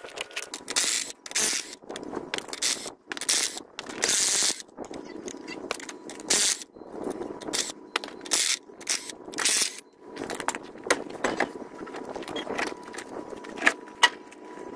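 Impact wrench run in short bursts of about half a second, again and again with pauses, loosening a truck's wheel nuts. From about ten seconds in, lighter metal clinks and knocks.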